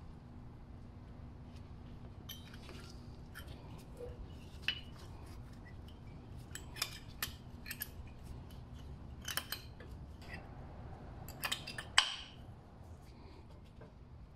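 Brake pads being fitted into a Mercedes disc brake caliper by hand: scattered light metal clicks, clinks and scrapes of the pads' steel backing plates against the caliper and of the wear sensor being pushed into place, with the loudest knock about twelve seconds in.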